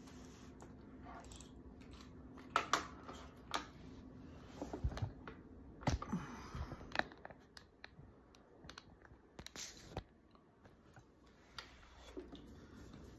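Hands working a laptop: scattered keyboard taps and clicks, with a few sharper knocks and bumps as the laptop and the recording phone are handled.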